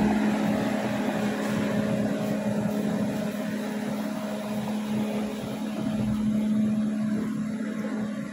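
Tracked hydraulic excavator's diesel engine running steadily with a constant drone.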